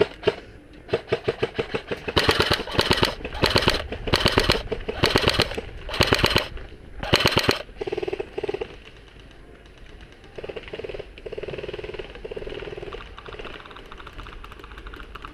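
Airsoft rifle firing rapid full-auto bursts: a string of short bursts of fast, sharp shots through the first seven or so seconds, after which only fainter, muffled sounds remain.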